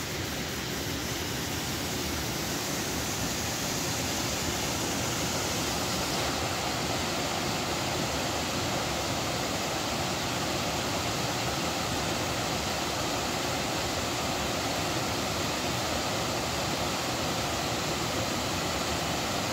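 Waterfall and creek cascades pouring over rock ledges: a steady, even rush of falling water, growing a little louder in the first few seconds.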